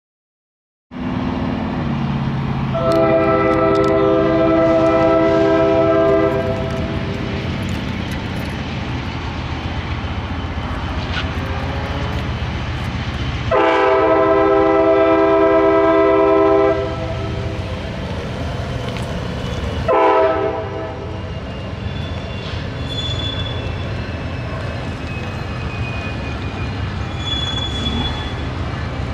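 Amtrak Auto Train's diesel locomotive horn sounding two long chord blasts and one short one, over the steady rumble of the approaching train. The sound begins about a second in.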